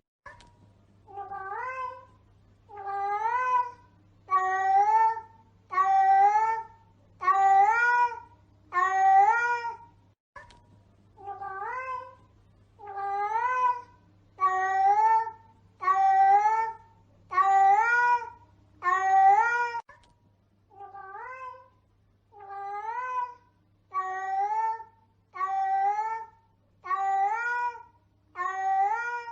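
Domestic cat meowing over and over in a curious tone: a short rising meow about every second and a half.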